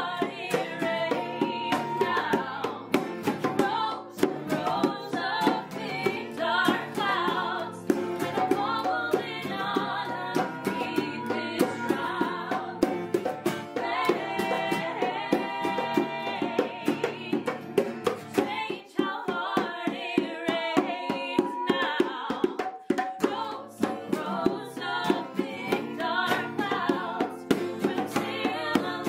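Acoustic folk song played live: acoustic guitars strummed, bongos played by hand, and women singing.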